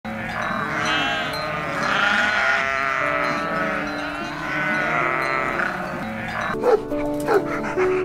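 A goat bleating: three long, wavering bleats over background music. Near the end a small dog gives a few short, sharp yaps.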